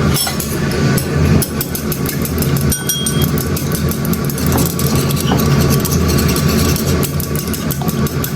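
Egg-and-flour pancake frying in a pan over a gas burner turned up high. A steady low rumble from the flame runs throughout, with a light crackling sizzle on top.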